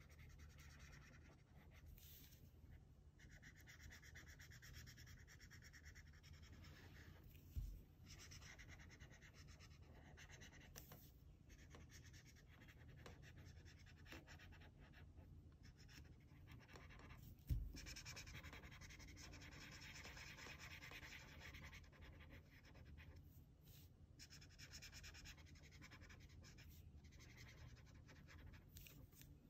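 Faint scratching of an orange Crayola felt-tip marker being rubbed across paper in stretches of short back-and-forth colouring strokes. Two brief low thumps, the loudest sounds, come about a quarter and about three-fifths of the way through.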